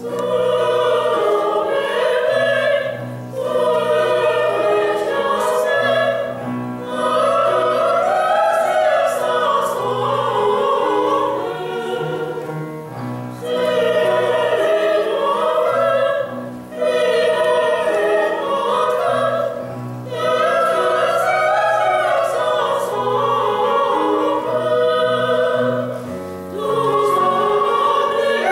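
Female voices singing bel canto opera with strong vibrato, in phrases of two to four seconds with short breaths between, over a steady low accompaniment.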